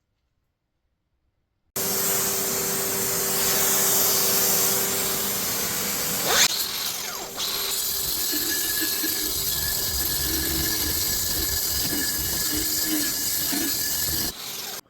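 Grinder working on the pitted, rusty steel of an old broad axe head: a steady motor whine under a harsh grinding hiss. It starts suddenly about two seconds in, the sound changes about halfway through, and it cuts off just before the end.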